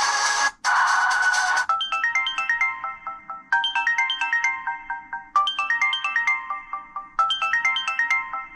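Samsung Vibrant ringtone playing: a quick run of short melodic notes, repeated four times about every two seconds. It follows a denser musical tone that breaks off briefly and then ends about a second and a half in.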